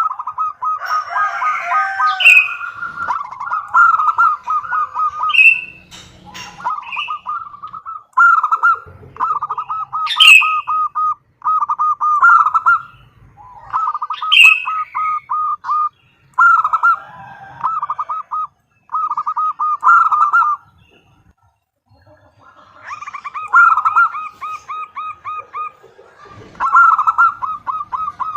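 Female zebra dove (perkutut) calling: rapid runs of short, clipped cooing notes, repeated in phrases of a second or two with short pauses between. A few brief sharp higher chirps cut in now and then.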